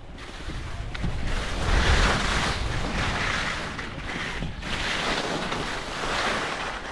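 Skis scraping and swishing over lumpy, chopped-up snow through successive turns: a hiss that swells with each turn, about four times, with wind buffeting the microphone underneath.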